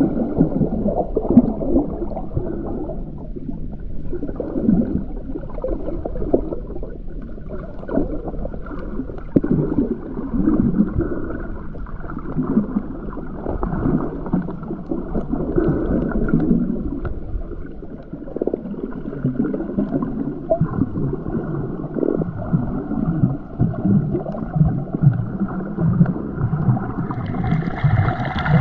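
Muffled underwater water noise, uneven bubbling and sloshing with the high end cut off. Near the end it turns brighter.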